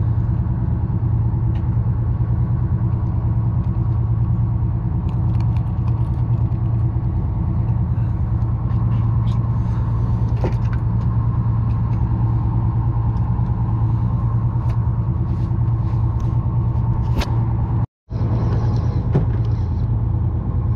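Boat engine running steadily at idle, a constant low hum, with a few faint clicks and taps from fishing tackle being handled.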